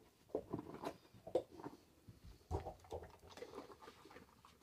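A dog sniffing and moving about on carpet, making irregular short rustles and light taps.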